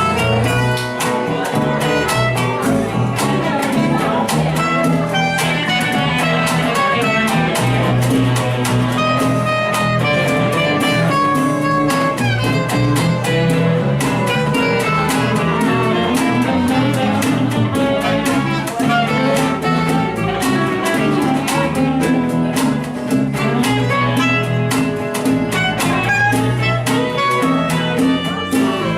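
A band playing music with a steady beat.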